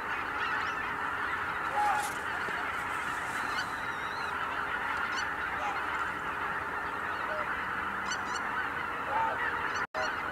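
A very large flock of greater white-fronted geese calling in flight, a dense continuous chorus of honking with single calls standing out here and there. The sound cuts out for an instant near the end.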